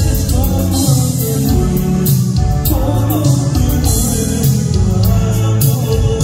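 A live band playing a song: a man singing lead over electric guitar, a steady bass line and drums with cymbals.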